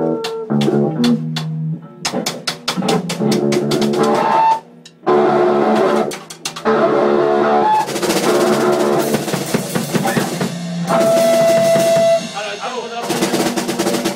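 A drum kit being played, drum and cymbal hits, along with pitched music that includes guitar, with a short break about four and a half seconds in.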